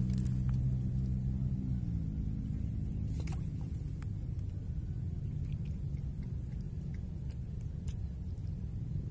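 A held chord of background music sinks in pitch and fades out about two seconds in, leaving a steady low rumble, with a couple of faint clicks.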